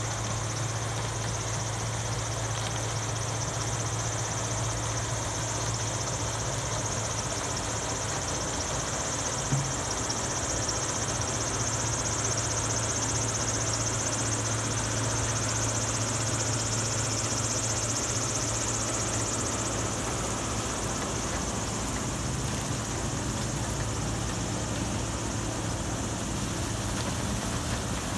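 Steady mechanical hum with an even high hiss, holding the same pitch throughout, and one brief knock about ten seconds in.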